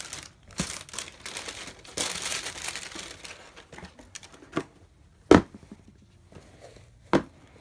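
Tissue paper rustling and crinkling as it is pulled out of a cardboard sneaker box. A few short knocks follow, the sharpest about five seconds in.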